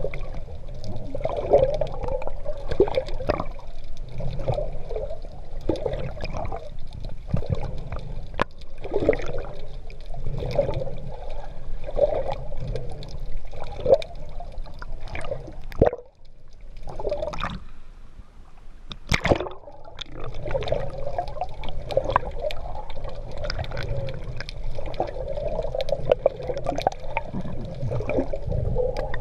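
Sea water sloshing and splashing around a GoPro camera carried by a swimmer, in repeated surges. It drops quieter for a few seconds a little past halfway, broken by a couple of sharp clicks.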